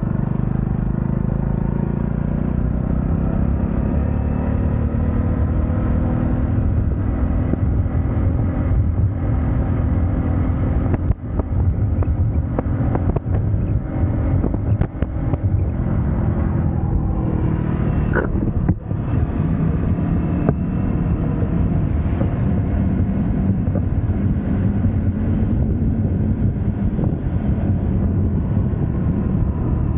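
A TVS XL100 moped's small single-cylinder four-stroke engine running with a steady low drone, with a few brief dips in level partway through.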